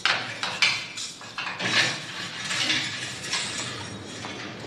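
Metal clinking and rattling at a barred cell partition: a run of sharp clicks in the first two seconds, then a longer stretch of clatter that fades in the second half.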